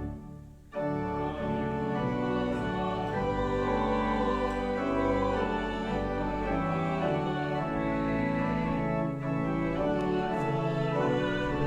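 Church organ playing slow sustained chords, breaking off for a moment just after the start before the next phrase begins.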